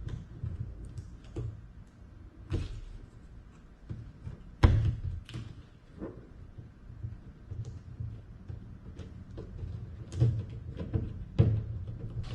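Irregular knocks, taps and thuds of parts being handled and set against a wooden kayak during fitting, the loudest a sharp knock about four and a half seconds in.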